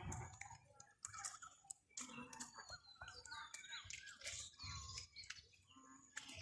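Faint bird calls: many short chirps and gliding calls mixed with scattered clicks.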